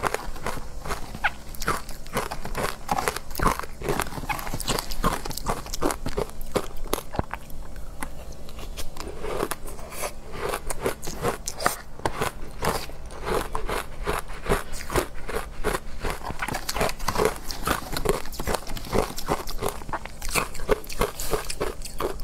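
Close-miked crunching and chewing of matcha-powdered ice: a rapid, continuous run of short, crisp crunches, several a second.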